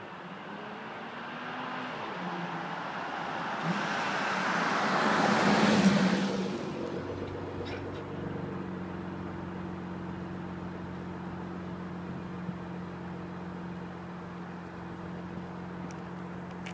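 Porsche Macan Turbo's twin-turbo V6 passing by in Sport Plus mode: the engine and tyre noise build up, are loudest about six seconds in, then fall away quickly. A steady low engine hum carries on afterwards.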